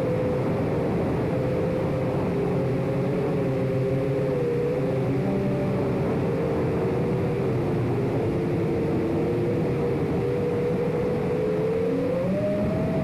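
Motors and propellers of a Chimera 7 Pro FPV quadcopter in flight: a steady whine of several close pitches that waver up and down with the throttle, climbing near the end.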